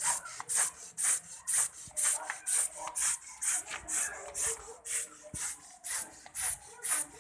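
Short hissing spray bursts from a Baygon insecticide spray can used as a makeshift paint sprayer, pulsed about twice a second in an even rhythm.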